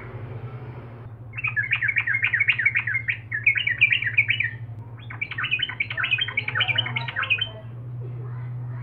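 Yellow-vented bulbul (trucukan) singing in fast runs of chirpy notes, one run of about three seconds starting a second in, then a short break and a second run of about two and a half seconds. A steady low hum runs underneath.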